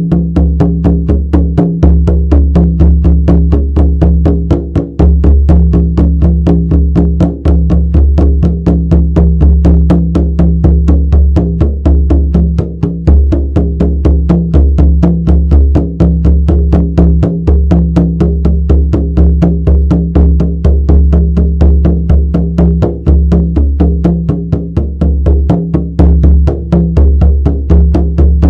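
Shamanic frame drum beaten in a fast, steady, unbroken rhythm, each strike ringing with a deep booming resonance.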